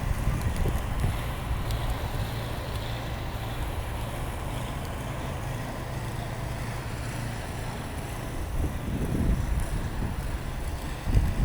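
Steady low rumble of a motor vehicle engine, with wind buffeting the microphone in gusts near the end.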